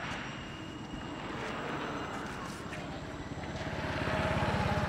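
Motor vehicle engine running and getting louder toward the end as it approaches along the road.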